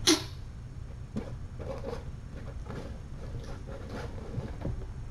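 Kittens moving about on bedding and a hard floor: faint scattered taps and rustles over a steady low hum. One sharp, high squeak comes right at the start and is the loudest sound.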